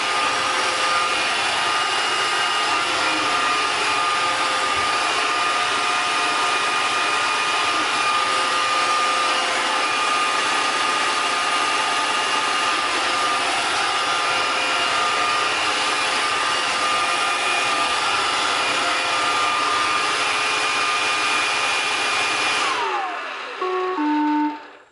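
iRobot Roomba 540 robot vacuum running steadily, its vacuum and brush motors whining, while caught in the 'circle dance' fault of spinning in circles. About 23 seconds in the motors wind down with a falling tone, followed by a few short electronic beeps.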